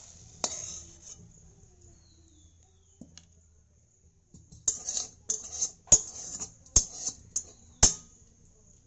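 Metal spatula knocking and scraping against a metal kadai, then a quick run of about seven scrapes and clinks against a plate as cooked mashed taro leaves are pressed and smoothed.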